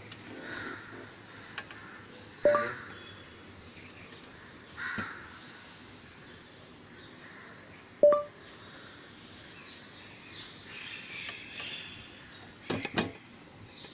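A crow cawing three times, about two and a half, five and eight seconds in, each a short harsh call. A few sharp clicks come near the end.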